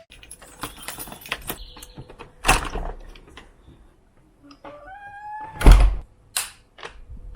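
Scattered clicks and knocks, then a short rising squeak and a loud thump about six seconds in, like a door being handled and shut.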